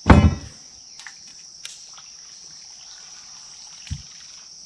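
Insects droning steadily at a high pitch. The drone opens with a brief loud rush of noise, and there is a soft low thump about four seconds in.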